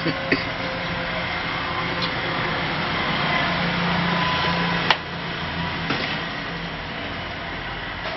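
Steady kitchen hiss and low hum while oil heats in an aluminium kadai, with a few light clicks, the sharpest about five seconds in.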